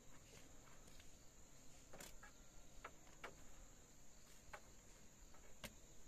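Faint, steady, high-pitched chirring of insects, with a few light clicks scattered through.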